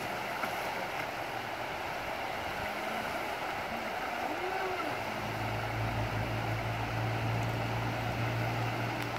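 River rapids rushing steadily, with the faint whine of a Pro Boat radio-controlled jet boat's motor rising and falling in pitch as it runs through the riffle. A low steady hum sets in about halfway through.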